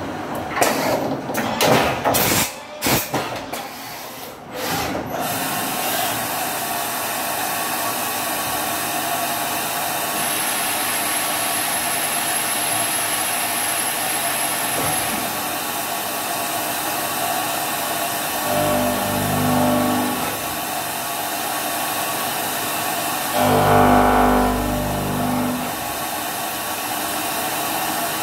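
LMW JV Kraft vertical machining centre with a 5-axis trunnion table running a machining job. It opens with a few seconds of irregular knocking and clatter, then settles into a steady machining noise with a thin high whine for a few seconds. Twice later on there is a short low hum.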